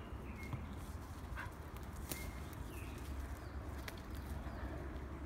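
A few sharp clicks and knocks of twigs snapping and shoes on bark as a man climbs along a leaning spruce trunk, over a low steady rumble.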